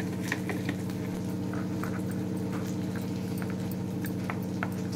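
Metal spoon stirring spice powder in a small glass bowl, with sparse light clicks and scrapes against the glass. Underneath is a steady low hum.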